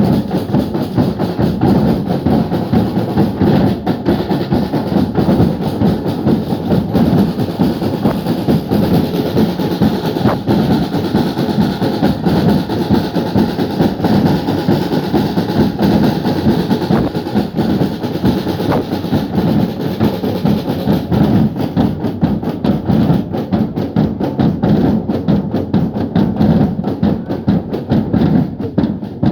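A group of drummers playing loud, fast, continuous drumming in a drum-off, with dense strokes and no pauses.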